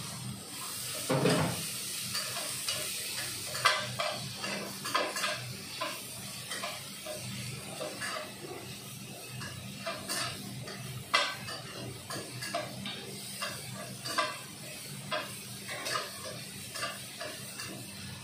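Spatula clinking and scraping against a wok in irregular strokes, about one or two a second, while tempeh and vegetables stir-fry over a steady sizzle. There is a dull thump about a second in.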